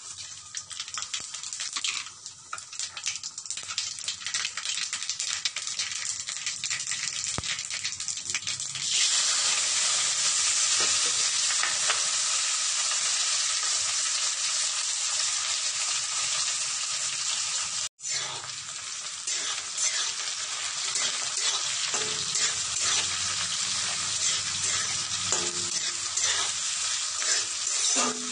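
Hot oil in an aluminium kadai sizzling as ingredients go in, growing to a loud, steady sizzle about nine seconds in as chopped onions, green chilli and coriander leaves fry. A brief break near the middle, then the frying continues with a spatula scraping and stirring in the pan near the end.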